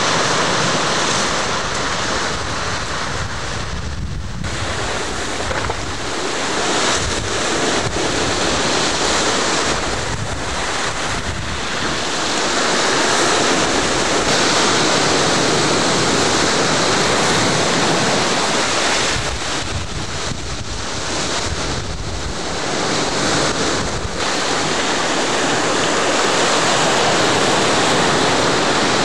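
Sea waves washing and surging among ice floes, a continuous noisy rush that swells and eases, with wind buffeting the microphone.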